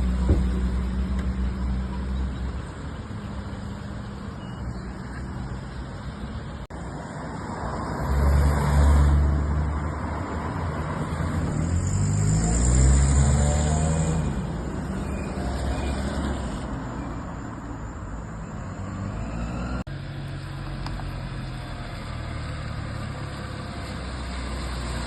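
Road vehicles driving by with engines running, louder as they pass about a third of the way in and again near the middle, where one engine's pitch glides as it goes by.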